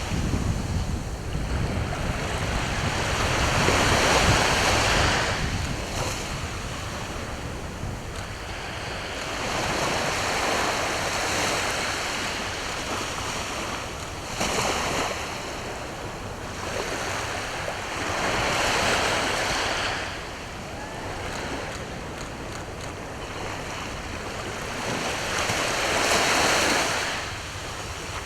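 East Sea waves breaking on the shore, the wash swelling and fading about five times, every five or six seconds. Wind buffets the microphone with a low rumble, strongest in the first few seconds.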